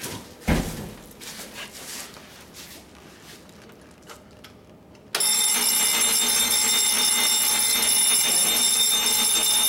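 A thump about half a second in, then about five seconds in a fire alarm bell starts ringing suddenly and keeps ringing steadily. This is the alarm going off in a test of the system, set off from a manual pull station.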